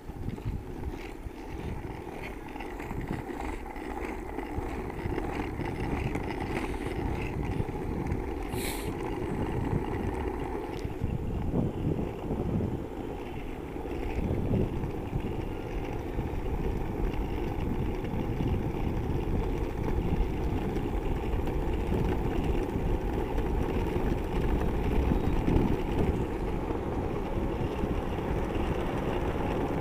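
Ripstick casterboard's caster wheels rolling over asphalt: a steady rolling rumble that grows louder over the first ten seconds or so. A brief high-pitched sound about nine seconds in.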